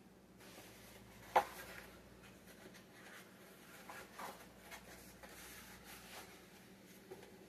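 Faint rustling and handling noises of someone moving things about in a kitchen, with one sharp tap about a second and a half in and a few softer scrapes later.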